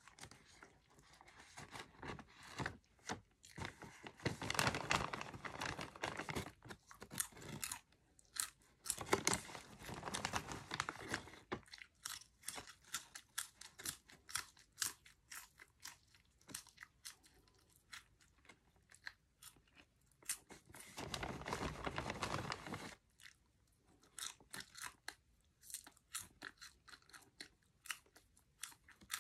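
Close-up chewing of crunchy cheddar cheese popcorn: dense crunches in three louder spells, with sparser, quieter crunches between them.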